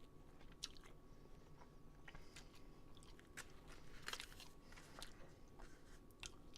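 Faint mouth sounds of someone chewing a bite of pouch tuna: a few soft, sharp clicks, roughly one a second.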